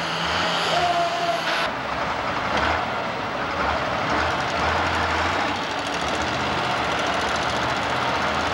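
Allis-Chalmers D-21 super stock pulling tractor's diesel engine running at low speed, a steady noisy drone.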